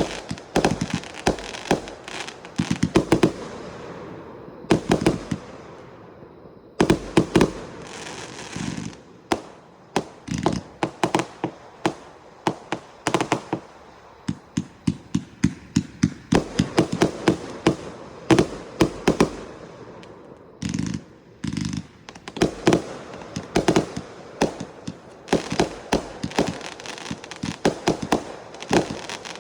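A 225-shot firework cake firing: rapid volleys of sharp reports, several a second, with a short lull about four seconds in.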